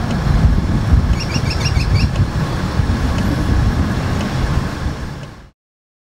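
Outdoor ambience with a loud, uneven low rumble and a bird chirping a quick series of short rising notes about a second in. It fades out to silence near the end.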